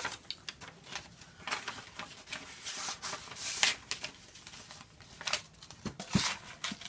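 Sheets of paper rustling and crinkling in irregular bursts as a letter is handled, with a soft knock about six seconds in.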